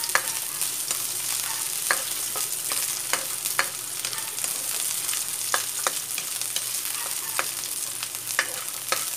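Ginger and onion sizzling in a little oil in a wok, stirred with a spatula that scrapes and taps the pan at irregular intervals over a steady sizzle.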